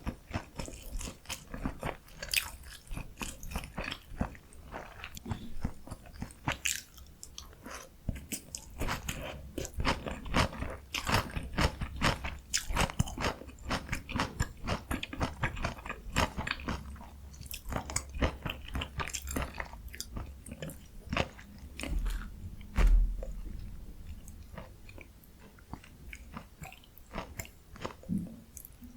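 Close-miked biting, crunching and chewing of a breaded, deep-fried Korean pork cutlet topped with cheese, a rapid run of crisp crackles. There is one louder low thump about three quarters of the way through.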